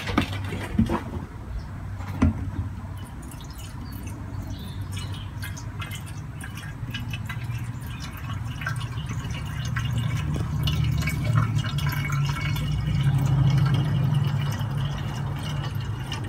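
Gasoline pouring from a plastic gas can into a push mower's fuel tank, louder in the last few seconds as the tank fills.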